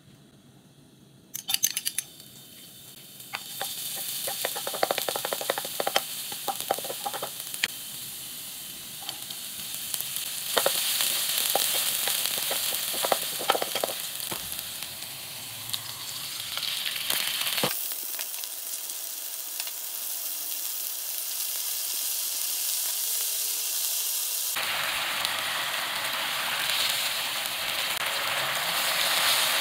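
Chopped spring onion and garlic sizzling in hot oil in a nonstick pan, with a wooden spoon clicking and scraping as it stirs them. Later, a steady sizzle as the oyster-sauce mixture boils in the pan.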